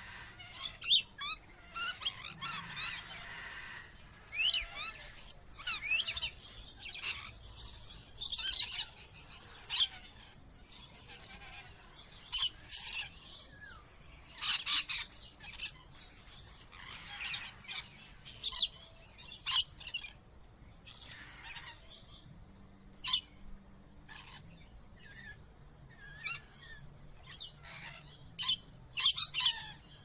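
A flock of lorikeets calling, with short, shrill screeches and chirps, many overlapping and coming in irregular clusters with brief lulls between them.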